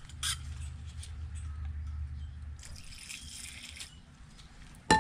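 Cleaning alcohol splashing and dripping in a bowl as a small carburetor part is washed in it, with a short hiss partway through. Near the end a sharp clink rings briefly, the loudest sound.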